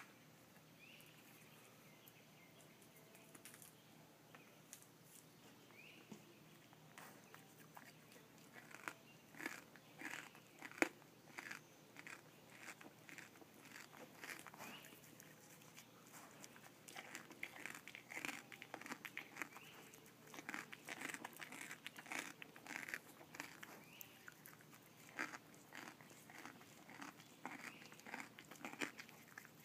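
A whitetail deer chewing and crunching food close to the microphone: quiet at first, then crisp, irregular crunches several times a second from several seconds in, coming thickest in the second half.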